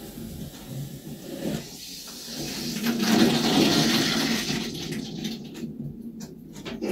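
Water rushing through a just-opened valve into the hot-water tank of a wood-stove water-jacket heating system as it fills, building to its loudest about three seconds in, then easing off.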